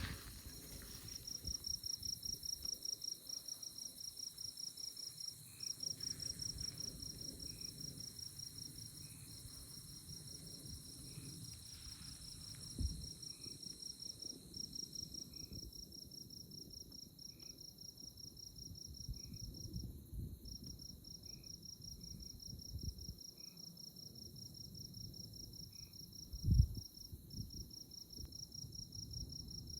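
Night chorus of crickets in tallgrass prairie: a fast pulsed high trill that breaks off briefly now and then, over a steady higher buzz, with a softer single chirp about every two seconds. Low rumbles come and go underneath, loudest twice.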